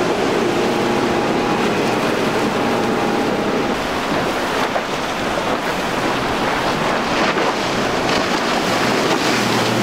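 Outboard-powered center-console boats running fast through choppy inlet water, with the engines' steady note under the rush of spray and waves. Wind buffets the microphone.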